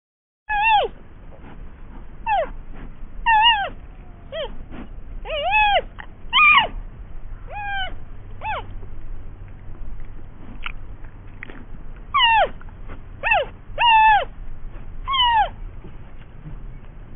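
A series of short animal calls, about a dozen, unevenly spaced, each a high note that falls quickly in pitch.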